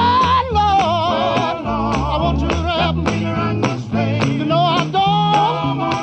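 Male gospel quartet singing live, the lead voice gliding up to a high held note at the start and then running melismatic, wavering phrases over the group's backing. Electric guitar and a walking bass line accompany, with handclaps and tambourine marking the beat.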